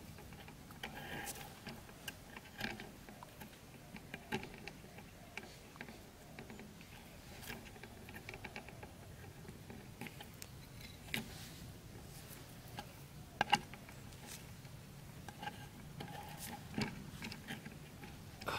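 Scattered small clicks, taps and rustles of hands handling a plastic bottle, string and bamboo sticks while setting a trap, with the sharpest pair of clicks about two-thirds of the way through.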